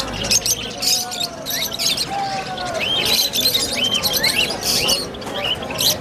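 A crowd of caged finches and parakeets chirping over each other. Many short high calls overlap continuously, some rising and falling in little arches.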